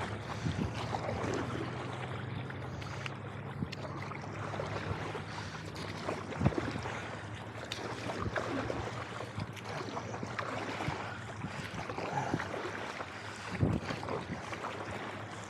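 Paddle strokes dipping and pulling through lake water from a stand-up paddleboard, a few sharp splashes at irregular intervals, with wind on the microphone.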